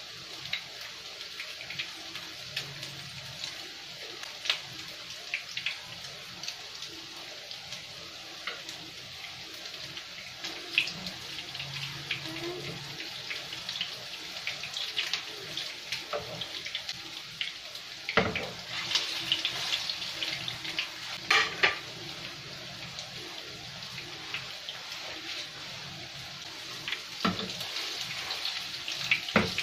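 Meatballs frying in shallow oil in a pan: a steady sizzle full of small popping crackles. A slotted spoon knocks and scrapes against the pan a few times in the second half as the meatballs are turned.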